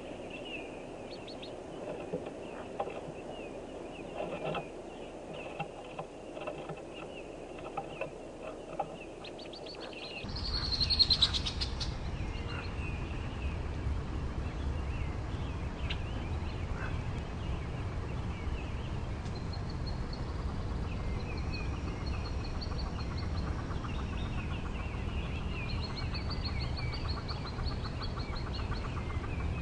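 Hooded merganser ducklings peeping in short, high, repeated calls. For the first ten seconds or so they sound in the nest box with light scratching and knocking. After a cut a steady low rumble comes in, with a louder burst of peeping just after it and more peeping series later.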